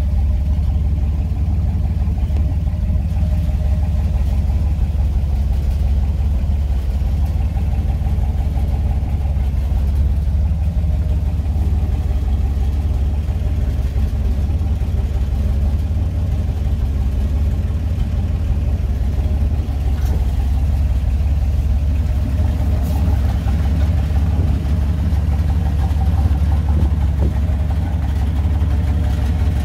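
1967 GMC grain truck's engine idling steadily, heard from inside the cab.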